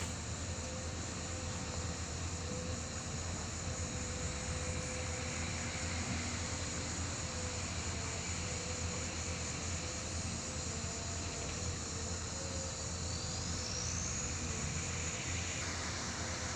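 Excavator's diesel engine running steadily: a low drone with a faint wavering whine above it.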